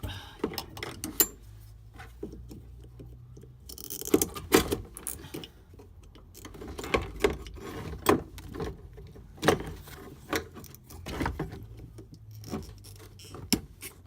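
Irregular clicks, knocks and light rattles of hands working loose the connections on a car's in-tank fuel pump assembly, over a faint steady low hum.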